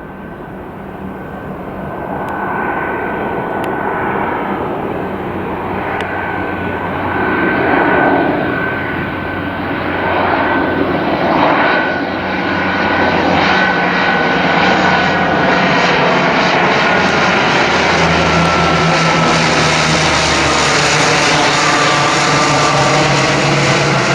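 Airliner on approach flying low overhead: engine noise swells steadily louder, with a high engine whine that sinks slowly in pitch in the last few seconds as the aircraft passes.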